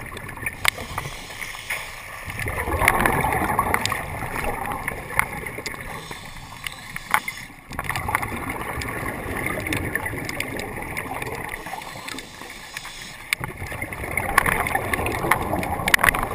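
Scuba regulator exhaust: the diver's exhaled bubbles gurgling and rushing past the camera housing underwater, swelling about two and a half seconds in and again near the end, with scattered sharp clicks.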